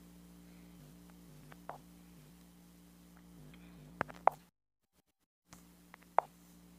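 Sharp clicks of fingertips tapping a smartphone touchscreen over a faint steady electrical hum, with two taps close together about four seconds in and another near the end. The sound cuts out completely for about a second between them.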